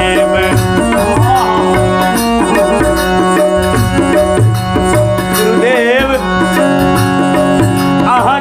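Harmonium and dholak playing a Maithili nirgun bhajan accompaniment: held harmonium chords over a steady dholak beat, with a wavering melodic phrase about two-thirds of the way through and again near the end.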